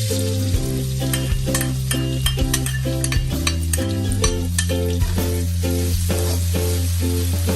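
Food sizzling in a hot pan while being stirred, with frequent scraping clicks of a utensil against the pan. Background music with a steady beat plays underneath.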